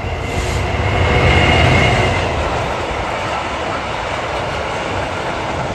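DB Cargo Class 66 diesel locomotive passing under power, its two-stroke V12 engine loudest about a second or two in, then the steady rolling rumble and clatter of the covered hopper wagons behind it.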